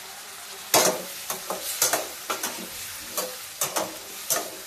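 Diced potatoes frying in oil in a stainless steel kadai, with a steady sizzle. From about a second in, a steel spatula scrapes and clinks against the pan about ten times as the potatoes are stirred.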